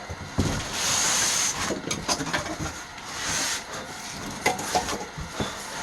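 A tankless water heater being slid out of its cardboard box: rustling and scraping of cardboard and plastic wrapping in two longer stretches, with several light knocks and clicks.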